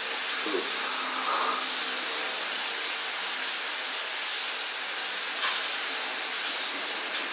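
A steady, even hiss of background noise, with a brief faint squeak about half a second in.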